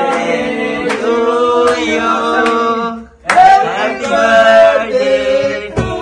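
Voices singing in long held notes, stopping briefly about halfway, with a few sharp claps or slaps in the first half.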